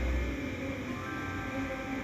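Background music made of sustained, held notes.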